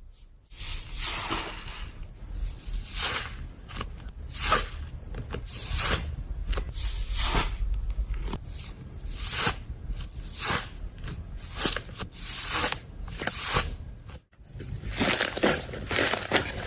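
Slime being squeezed, stretched and pressed by hand, giving an irregular run of sticky crackles and pops. There is a short break about 14 seconds in before the crackling resumes.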